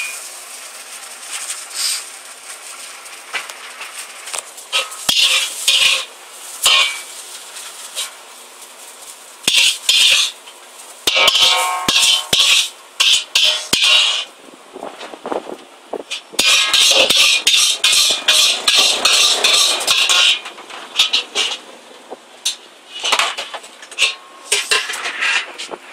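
Metal ladle scraping and clanging against a wok as noodles are tossed and scooped, in repeated irregular bursts with sharp clicks in between, over a steady hiss.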